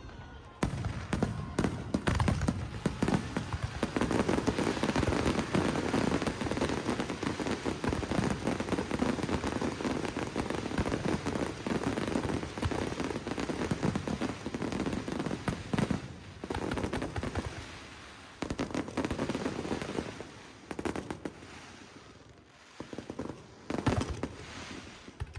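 Aerial fireworks bursting in rapid succession, a dense barrage of bangs and crackle. It thins out to scattered bangs about two-thirds of the way in, then picks up again with a few more near the end.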